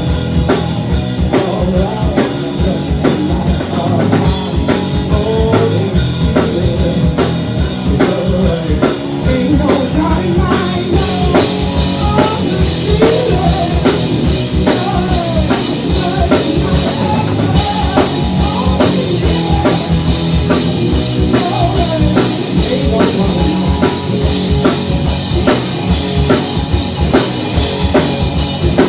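A live rock band playing a song: a drum kit keeping a fast, steady beat under guitars.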